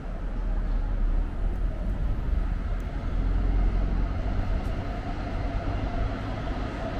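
A train passing with a steady low rumble, and a faint steady whine joining about halfway through.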